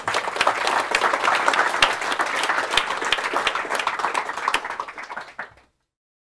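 Audience applauding, a dense patter of many hands clapping that cuts off suddenly near the end.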